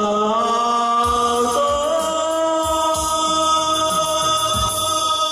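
A man singing into a microphone, holding long notes over a backing track with a deep bass beat.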